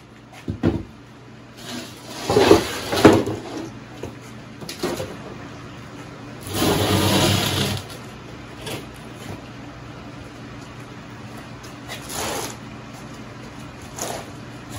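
Sheets of OSB board being handled and set down on a concrete floor: a string of wooden knocks and thumps, the loudest a few seconds in, and about a second of scraping a little past the middle as a sheet is dragged on the concrete.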